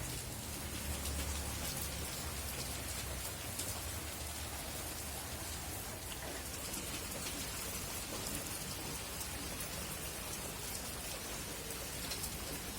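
Steady rain falling, a continuous patter of many small drop ticks. A low rumble sits under it for the first three seconds or so.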